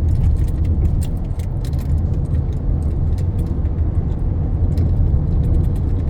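Road noise inside a moving car: a steady low rumble, with many small clicks and jingles from something loose rattling in the cabin.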